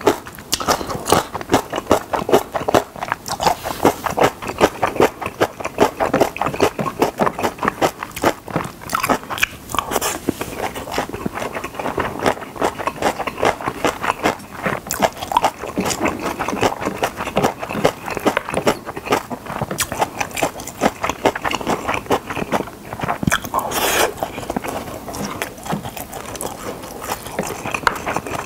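Close-miked chewing of Spam kimchi fried rice: a fast run of wet mouth clicks and lip-smacks, with a plastic spoon now and then scraping across a ceramic plate as he scoops more.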